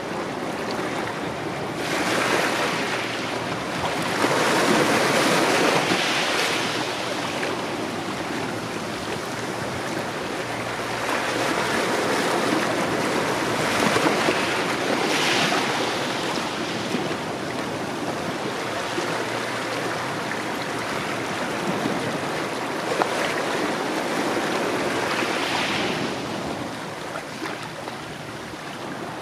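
Small Mediterranean waves breaking and washing up a sand-and-gravel shore between rocks, the surf swelling and falling back three times.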